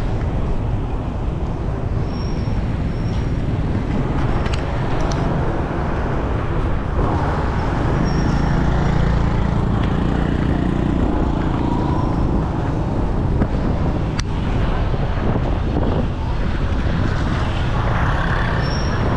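Steady city street traffic noise from passing vehicles, with one vehicle passing louder about halfway through.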